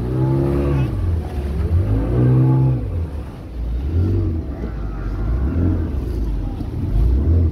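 Speedboat engine running steadily at speed over the water as a constant low rumble, with people's voices breaking in several times.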